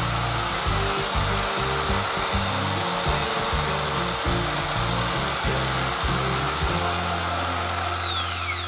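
Bosch PSA 700 E 710 W corded reciprocating saw running free with no blade fitted, its plunger stroking in the air at steady speed. Near the end the motor winds down with a falling whine.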